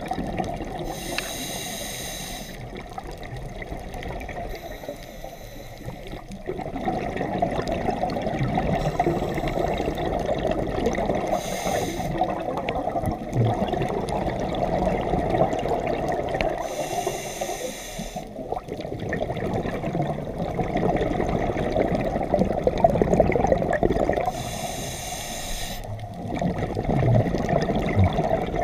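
A scuba diver breathing through a regulator underwater: a short hiss on each inhale, then a long bubbling rumble as the exhaled air leaves. There are about four breaths, one every six to eight seconds.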